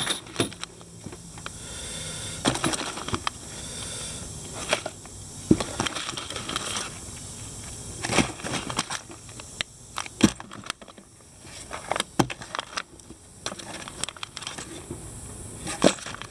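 Plastic bags of hardware fasteners crinkling and rustling as a hand rummages through a cardboard box, with scattered sharp clicks.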